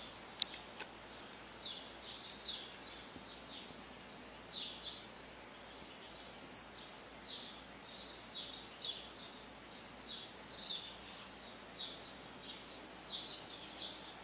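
Small birds chirping over and over, short high notes that slide downward, a few each second, over a faint steady high-pitched tone. A single sharp click about half a second in.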